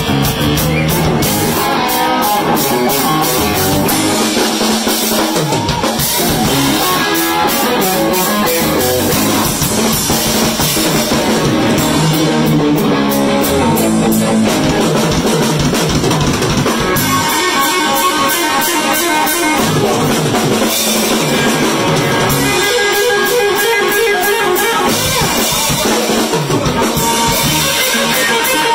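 Live blues-rock band playing an instrumental break without vocals: electric guitar over a steady drum-kit beat.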